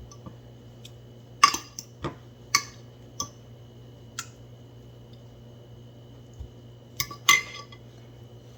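Sharp clinks and taps of kitchen dishes and utensils as chicken tenders are dredged through coating bowls, about seven separate knocks in two clusters, over a faint steady hum.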